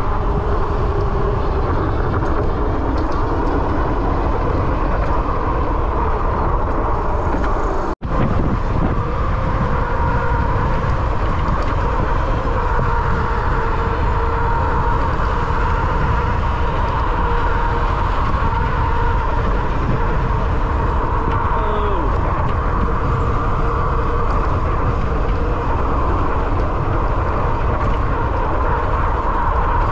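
Wind rushing over the microphone and road noise from an e-bike riding along, steady and loud, with a brief break in the sound about eight seconds in.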